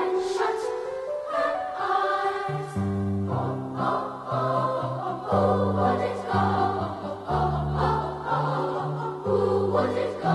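A choir singing slow, sustained chords. A low bass part enters about two and a half seconds in and moves in held notes.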